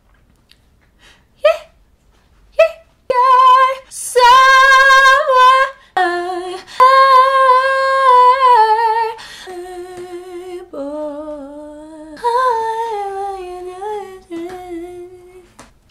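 A woman's wordless vocal warm-up: two short rising yelps, then long high sung vowels with wide vibrato. About halfway through the notes step lower and quieter, then return louder with falling slides.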